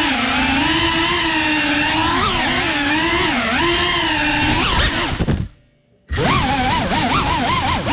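FPV quadcopter's motors and propellers whining, the pitch rising and falling as the throttle changes. The sound cuts out for a moment about five seconds in, then returns with a fast wavering whine.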